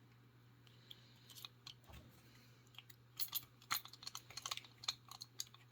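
Faint metallic clicks and scrapes of a lock pick being worked into the worn keyway of a Château C970 discus padlock, with a tension wrench already seated at the bottom of the keyway. The clicks are scattered at first and come thicker from about three seconds in.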